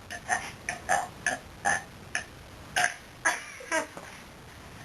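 A person belching a quick run of short, separate burps, about two or three a second, stopping a second before the end.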